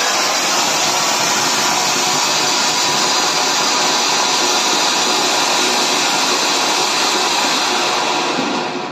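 Anar ground fountain firework spraying sparks with a loud, steady rushing hiss, which dies away at the very end as the fountain burns out.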